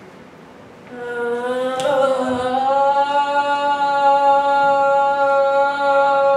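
A voice singing one long held note that starts about a second in, slides up a little at first, then holds steady.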